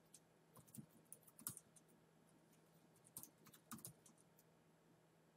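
Faint typing on a MacBook Pro keyboard: quick key clicks in two short runs with a pause between them.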